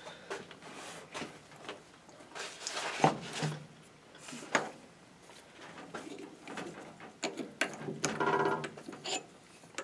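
Scattered light metallic clicks and knocks from an old Logan three-jaw lathe chuck being worked with its chuck key as a long fluted tool shank is drawn out of the jaws.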